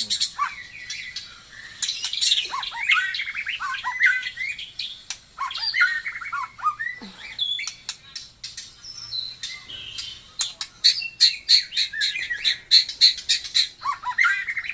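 Murai songbird singing a varied song of quick whistled notes that swoop up and down, mixed with sharp clicking notes that come thick and fast in the second half.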